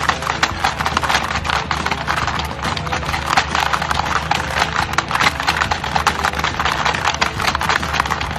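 Rapid, dense clattering of many small clicks over a steady low hum.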